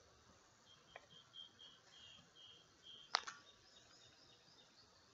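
Film compartment door of a Yashica Super-8 movie camera being opened by hand: a faint click about a second in, then a sharp latch click about three seconds in with a brief ring after it as the door comes free.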